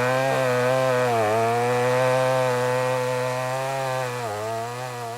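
Two-stroke chainsaw running at high revs, cutting timber; its pitch sags briefly a few times as the chain bogs down in the cut, and it eases off slightly near the end.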